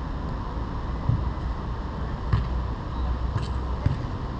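Wind rumbling on a GoPro's microphone, with four short sharp knocks scattered through, the loudest near the end.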